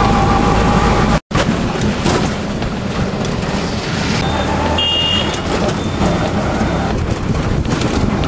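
Motor vehicle running, a steady engine hum with road noise. The sound cuts out completely for an instant about a second in, and a short high tone sounds about five seconds in.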